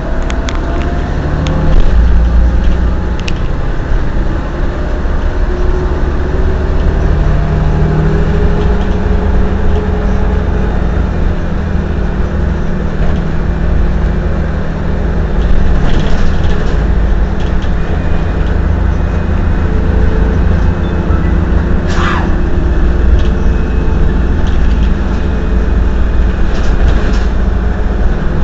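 Mercedes-Benz O 405 N city bus running, its engine note rising and falling as it pulls away and changes speed. A brief high squeak or hiss cuts in about 22 seconds in.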